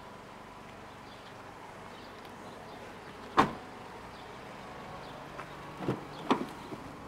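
A sharp knock about halfway through, then two quick clicks near the end as the Honda CR-V's rear door handle is pulled and its latch releases, over a faint steady hum.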